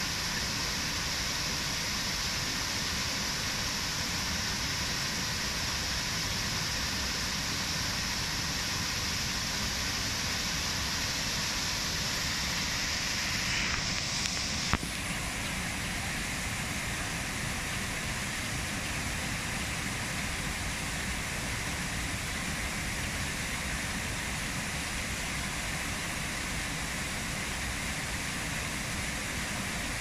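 Small waterfall cascades splashing steadily over rocks into a pond, an even rushing of water. About halfway through there is a sharp click, after which the rushing is a little less hissy.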